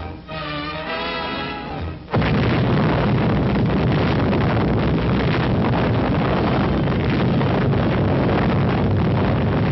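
Orchestral newsreel music, broken off about two seconds in by a sudden loud, steady explosion roar on the soundtrack, standing for the atomic bomb blast, which rumbles on for about eight seconds.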